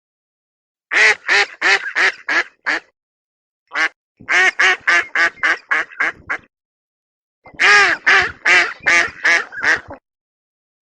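A duck quacking in three runs of several quacks each, about two or three a second, each run starting loud and fading away.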